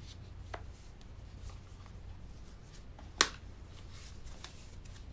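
Hands handling a silicone folio iPad case: soft rubbing and light taps, with one sharp click about three seconds in, the loudest sound.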